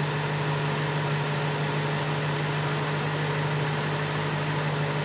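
BMW 650i's N62 V8 engine idling steadily at operating temperature, heard from beneath the car, with the ZF 6HP26 automatic transmission being topped up and checked with the engine running.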